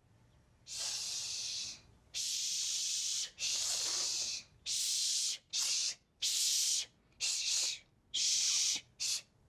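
A young girl hissing "shh" over and over, about ten sharp bursts of different lengths with short gaps between them.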